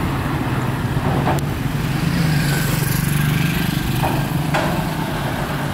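A small motorcycle engine running close by on the street, a steady hum that swells a little in the middle. Two short clicks, about a second in and again near the end.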